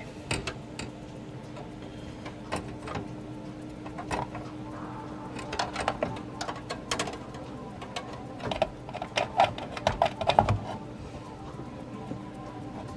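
Irregular clicks and taps of a graphics card's metal bracket and plastic parts knocking against a PC case as the card is lined up and seated, quickening into a cluster about two thirds of the way through, over a faint steady hum.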